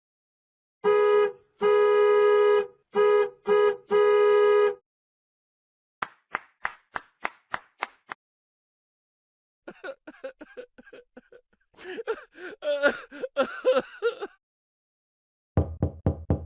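A string of comedy sound effects: a horn-like tone honked five times in a short-long-short-short-long pattern, then a quick run of about eight sharp plucks, then a few seconds of dense chattering, and a burst of low quick pulses near the end.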